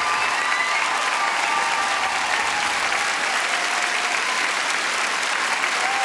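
Studio audience and judges applauding, a steady wash of clapping.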